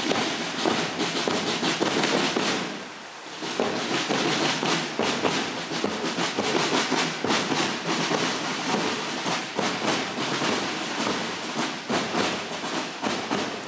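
Boots of a marching column on a paved street: a dense, uneven clatter of many footsteps, dipping briefly about three seconds in.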